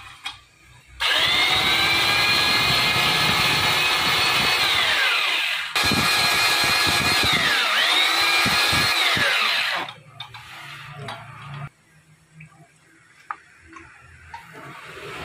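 Drill press spinning a cylinder boring tool in a motorcycle cylinder bore, in two runs: it starts about a second in with a high whine, the pitch falls away and it restarts almost at once, then sags and recovers under load and winds down and stops about ten seconds in. Light metal clicks and knocks of the block being handled follow.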